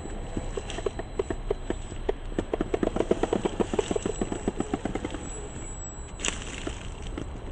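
RC rock crawler's drivetrain and tyres clattering under load as it climbs a boulder: a fast run of clicks, about ten a second, loudest midway, then a single sharp knock near the end.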